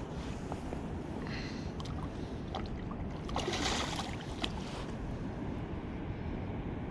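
Steady wind noise on the microphone over rushing river water, with a short louder burst of noise about three and a half seconds in and a sharp click just after it.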